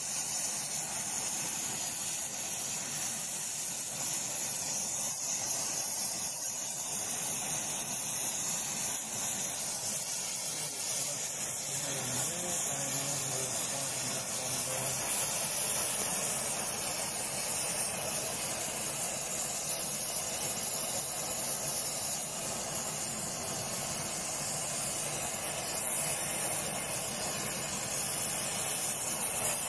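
Gas torch flame hissing steadily as it heats the clamped cast-iron body of a bent Record 010 bench rebate plane, to set the body straight against the bar it is clamped to.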